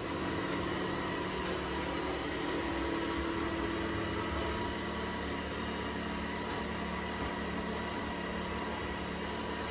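Robot vacuum cleaner running: a steady motor whir with a faint, constant whine.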